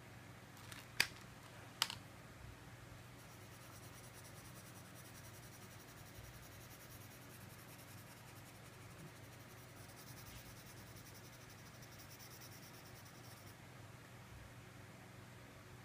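Two sharp clicks as a plastic crayon is picked out of its plastic tray, then about ten seconds of faint, rapid, scratchy strokes of the crayon colouring on paper, which stop a couple of seconds before the end.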